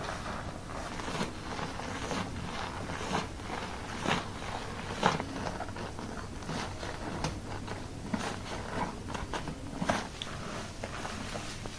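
Fingers scrubbing shampoo lather into hair and scalp: irregular wet crackling and squishing. A faint steady low hum runs underneath.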